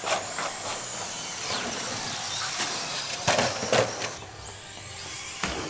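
Radio-controlled cars racing on a track: high-pitched motor whines rising and falling with speed, and a few sharp knocks, the loudest two a little past the middle.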